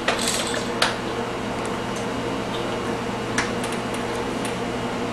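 A few scattered light clicks and knocks of a plastic toy being handled on a baby walker's tray, over a steady low hum and hiss.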